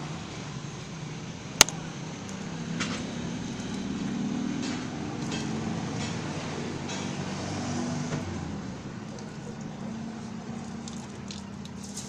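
A soaked cloth being handled and wrung out, with faint rustles and squeezes, over a steady low hum of vehicle traffic. One sharp click about a second and a half in.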